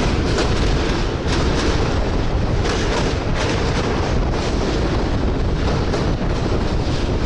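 Indian passenger train running over a bridge, heard from its open doorway: a loud, steady rumble and rush of noise with wind buffeting the microphone.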